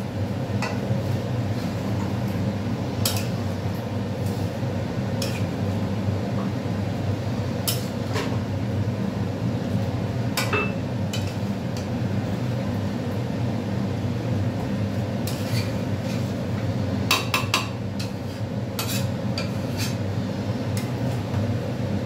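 Metal spatula stirring chicken and potatoes in a metal kadai, scraping and clinking irregularly against the pan over a steady low hum.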